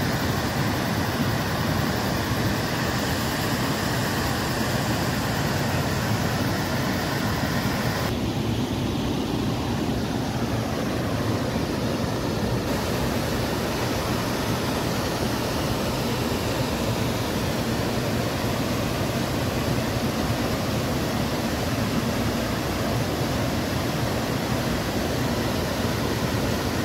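Mountain waterfall and cascade rushing over boulders: a steady, unbroken rush of water. The tone shifts about 8 s in, going duller for a few seconds before brightening again.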